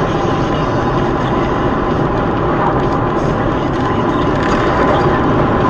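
Steady, loud engine and road noise of a moving vehicle, heard from inside its cab, with no sudden events.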